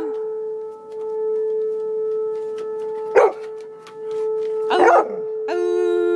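A tornado siren holding one steady tone while an Alaskan malamute howls at it: two short yelping calls about three and five seconds in, then a long, level howl near the end.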